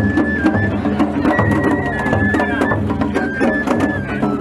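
Japanese festival hayashi music from a float: a bamboo flute plays held, stepping notes over steady, rapid drum and percussion strikes.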